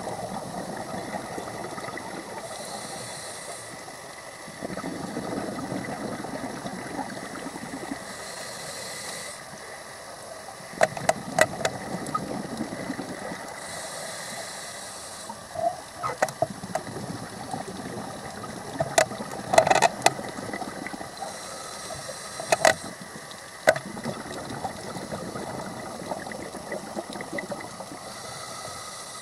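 Underwater sound of a scuba diver breathing through a regulator: a hissing inhale about every six seconds, each followed by a longer rumble of exhaled bubbles. Groups of sharp clicks come in the middle stretch.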